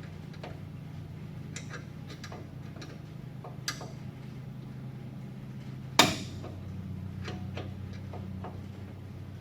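Light metallic clicks and taps of hand tools and brake parts being handled, with one sharp metal clank about six seconds in that rings briefly, over a steady low hum.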